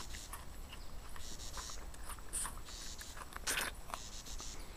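Birds chirping in the evening, scattered short high calls. One brief louder noise about three and a half seconds in.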